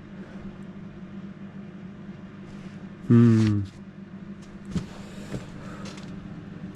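Steady low hum throughout, broken about three seconds in by a man's brief wordless vocal sound, the loudest thing here, followed by two light knocks.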